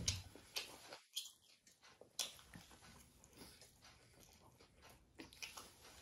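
A person biting into and chewing an aloo tikki burger: soft, irregular short mouth sounds. A sudden thump right at the start.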